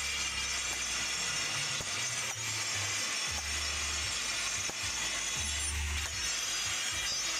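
Hammer driving a steel chisel into a block of natural stone, scattered light taps as the rim of a stone mortar (cobek) is chipped to shape, over a steady hiss.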